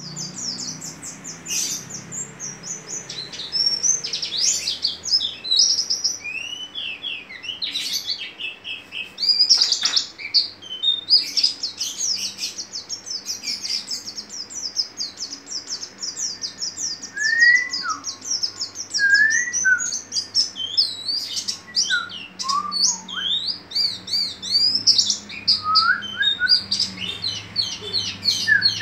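Caged pleci dakun white-eye singing in full, non-stop song: a long, rapid, high-pitched twittering of chirps and trills. A few separate lower whistled notes come in from a little past the middle.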